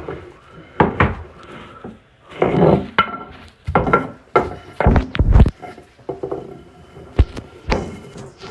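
A string of irregular knocks and thuds, about a dozen over several seconds, with scraping and rustling between them, as things are moved and bumped about in a small room during a chase after a mouse.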